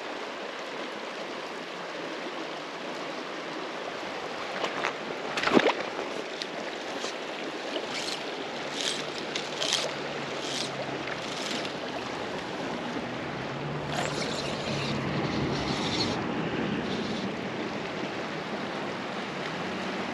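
South Platte River current running steadily, with a sharp knock about five and a half seconds in and a string of short swishes from about eight seconds on.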